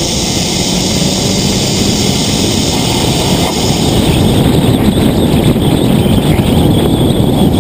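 Wind rushing over the microphone and tyre roar from a Nissan GT-R driving at speed, heard from a camera mounted low on the outside of the car. The noise is steady and grows a little louder about halfway through.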